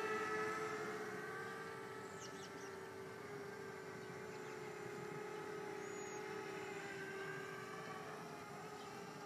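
Simtoo Fairy quadcopter's propellers humming steadily in flight, a whine whose pitch drifts slightly and which eases off a little after the first second. A couple of faint high chirps sound about two and six seconds in.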